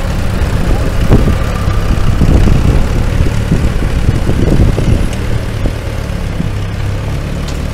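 Case LA tractor's engine running steadily at low speed while hitched to a pulling sled, with a few short louder spikes in the first half.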